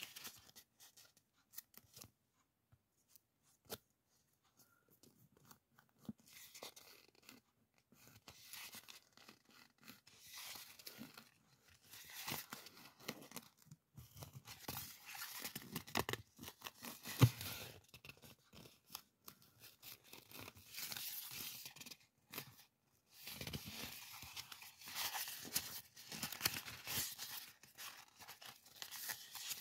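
Printed paper masking tape being peeled off its roll and handled: an irregular crackling, tearing-like rustle that comes and goes, sparse at first and busier after a few seconds, with one sharp click about two thirds of the way in.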